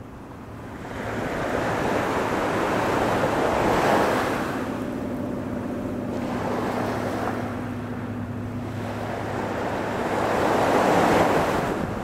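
Small waves breaking and washing up a sandy beach, the surf swelling to a peak about four seconds in and again near the end. A faint, steady low hum runs underneath in the middle.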